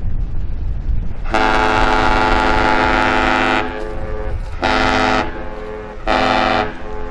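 Great Lakes freighter Philip R. Clarke sounding its horn: one long blast and then two short ones, the long-short-short master's salute. The horn echoes faintly between the blasts, over wind rumble.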